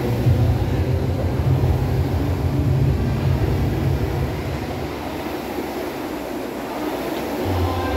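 Air rowing machine's flywheel fan whirring under steady rowing strokes, dipping slightly midway and building again near the end.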